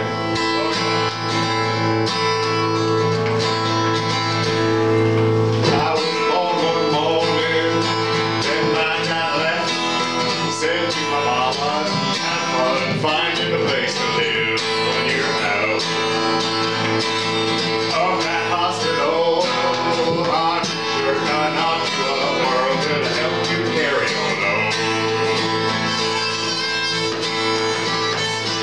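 Acoustic guitar strummed with a harmonica playing the melody, an instrumental country-folk tune.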